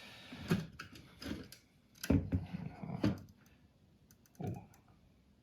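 A series of separate clicks and knocks, about one a second, from the display's casing and LED matrix modules being handled and pulled apart.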